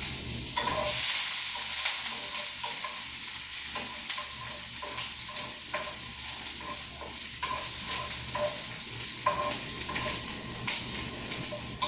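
Garlic and onion sizzling as they fry in hot olive oil, with a utensil stirring the pan in many light knocks and scrapes.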